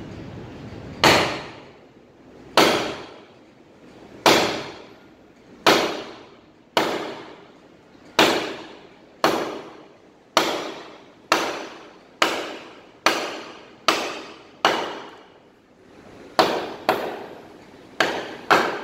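Wooden mallet striking the back of a froe's steel blade, driving it down into a log stood on end to split it along a crack. About seventeen sharp blows, each with a short ringing tail, coming faster near the end.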